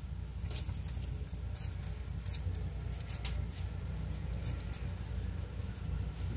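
A few faint, sharp clicks and smacks from a bearded dragon's mouth and tongue working at a slippery piece of pear, over a steady low rumble.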